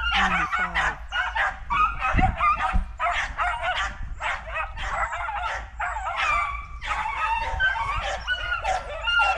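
Several beagles baying and yipping at once, an unbroken chorus of overlapping voices, as a hunting pack gives tongue on a rabbit's trail.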